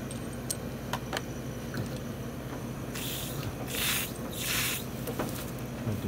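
Hands working the water heater's metal pipe fittings: a few light metal clicks in the first second or so, then three short rasping noises about three to five seconds in.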